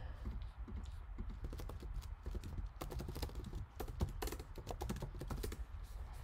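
Typing on a computer keyboard: a fast, irregular run of key clicks, over a low steady hum.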